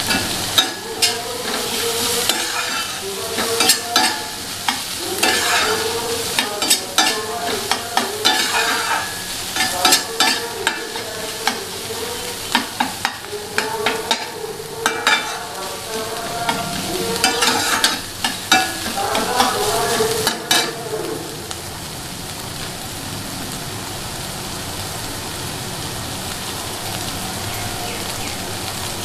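Chopped onions and green chillies sizzling in hot oil in a stainless steel frying pan, stirred with a steel spatula that scrapes and clinks against the pan again and again. After about twenty seconds the stirring stops and only the steady sizzle goes on.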